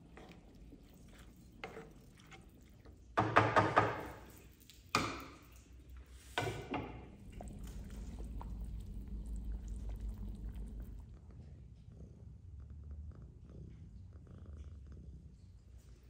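A wooden spatula stirs and knocks in a frying pan of rice, with a burst of quick strokes about three seconds in and single knocks near five and six and a half seconds. Then a large pot of broth simmers with a low, steady bubbling rumble.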